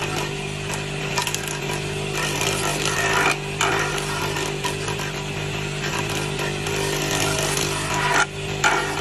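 Motor-driven jointer planing the edge of a wooden board: a steady motor and cutterhead hum under a dense cutting noise as the board is pushed over the cutter. The cutting noise drops briefly twice, about three and a half seconds in and near the end, as one pass ends and the next begins.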